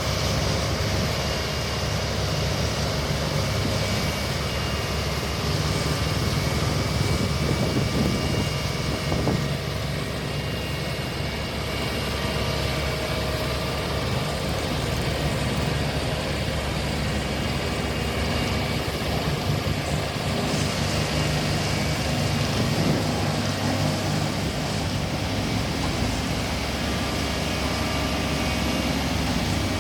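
Heavy road-construction machinery, such as a road roller, running steadily with a low engine drone that holds at an even level.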